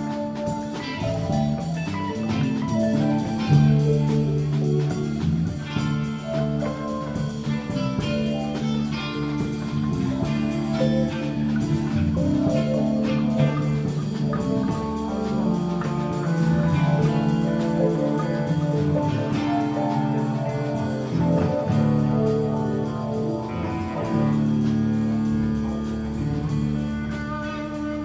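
A band playing an instrumental jam: guitar lines over bass and drum kit.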